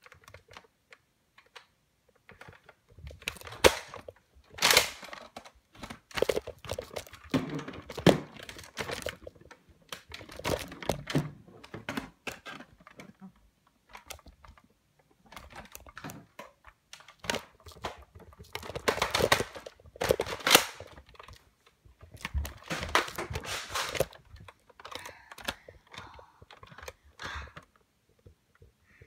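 Irregular thuds, clicks and rustling from a phone being handled and carried about during a Nerf battle, with occasional louder knocks.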